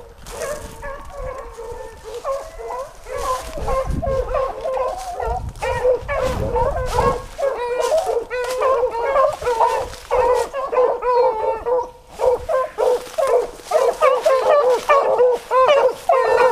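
A pack of beagles baying on a rabbit's scent, several voices overlapping in a continuous chorus. It grows louder toward the end, with a brief lull about twelve seconds in.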